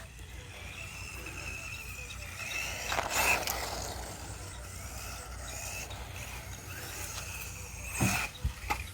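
Haiboxing 18859A RC truck's electric motor and gears whining as it is driven across wet grass, the pitch rising and falling with the throttle. There are louder swells about three seconds in and again near the end.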